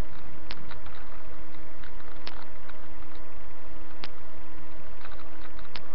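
Steady, loud recording hiss with a low hum, broken by a sharp click about every second and three-quarters, evenly spaced.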